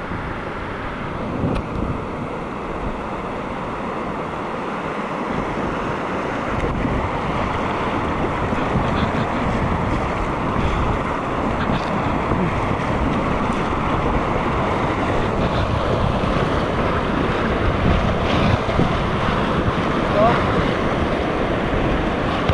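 Whitewater rapids rushing around an inflatable kayak, with paddle strokes splashing and wind buffeting the microphone. The water grows louder from about six seconds in as the boat runs into the rapid.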